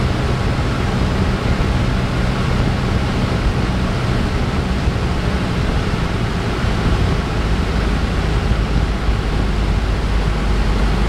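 Cessna 172's engine and propeller running steadily, heard inside the cockpit together with rushing air noise. The engine's low hum is clearer for the first few seconds, then blends into the wind noise.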